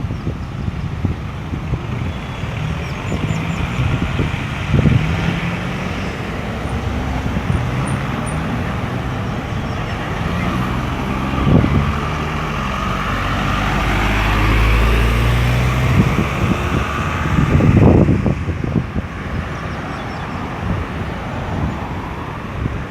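Road traffic circulating at a busy roundabout: car, truck and bus engines running and passing. A heavy vehicle's low engine rumble builds through the middle, and there are brief louder surges about halfway through and near the end.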